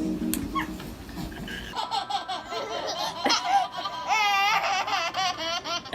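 Baby laughing in high-pitched squeals, starting about two seconds in, with a quick run of repeated giggles near the end; background music ends just before.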